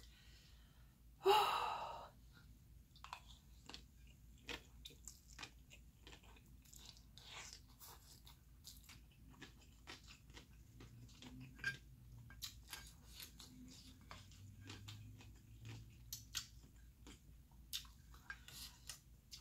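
Close-miked chewing of spicy ramen noodles: soft, wet mouth clicks and smacks scattered irregularly. A louder, noisy burst comes about a second in.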